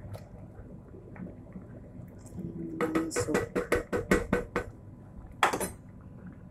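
Wooden spoon stirring thick soup in an enamelled Dutch oven and scraping the pot: a quick run of about ten scrapes over nearly two seconds, then one louder scrape about a second later.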